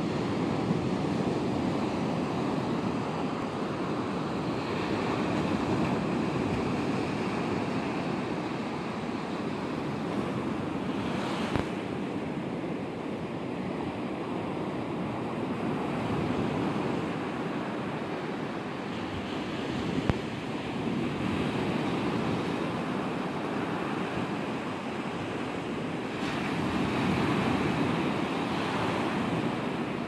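Sea surf: waves breaking and foaming up the shore in a continuous rush that swells and eases as the waves come in.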